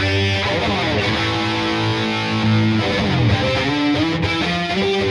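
Ibanez RG350DXZ electric guitar played through a distorted tone: sustained notes and lead lines, with a note sliding down in pitch about three seconds in.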